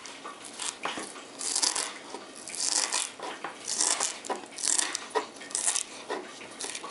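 Kitchen knife chopping fresh dill on a wooden cutting board: repeated crisp strokes of the blade through the wet stems into the wood, about one a second, with lighter taps between them.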